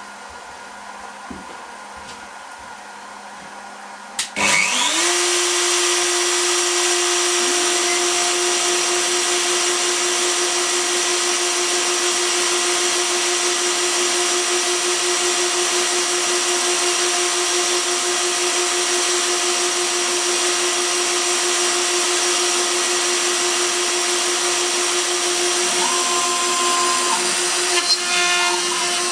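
CNC router spindle switching on about four seconds in, spinning up with a rising whine and then running at a steady high-pitched speed, a hiss over the top.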